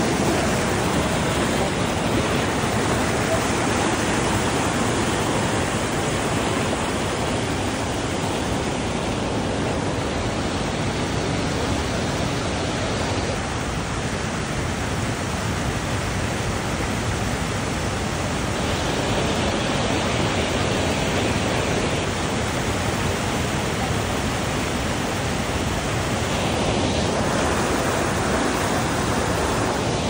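A small waterfall and rapids rushing over granite rocks: a loud, steady roar of falling water.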